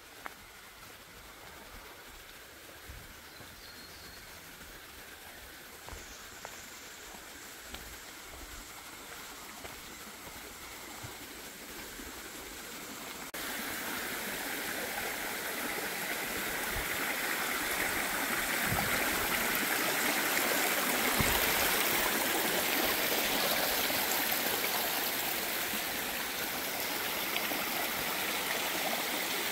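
Mountain creek rushing, a steady wash of water that grows louder, jumping up sharply about halfway through.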